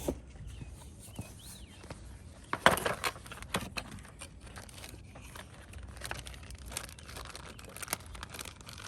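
Tools and small objects being picked up and handled: scattered clicks, taps and rustles, with a louder clatter about two and a half seconds in.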